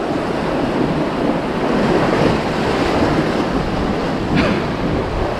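Sea surf surging and washing among concrete tetrapod breakwater blocks, with wind buffeting the microphone.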